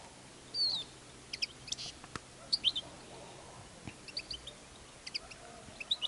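European goldfinches calling: short, high twittering chirps scattered throughout, the loudest about half a second in, with a single sharp click about two seconds in.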